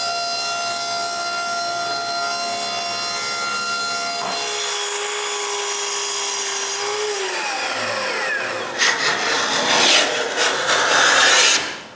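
A power saw runs steadily cutting wood, is switched off about four seconds in and winds down with a falling whine. About nine seconds in come several loud, rough strokes of a hand plane shaving the cut edge of the wood.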